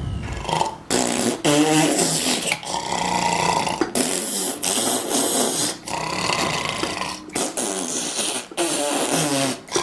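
Exaggerated cartoon snoring: a run of noisy, wheezing breaths of a second or so each, broken by brief gaps, several with a fluttering, rattling snort. It is meant as the snoring of sleep apnea.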